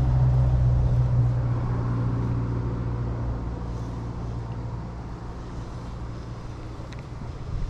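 A motor vehicle's engine droning with a steady low hum, fading away as it moves off.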